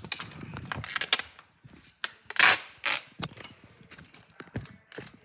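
Paper being handled for a craft, rustling and crinkling in several short noisy bursts, the loudest about two and a half seconds in.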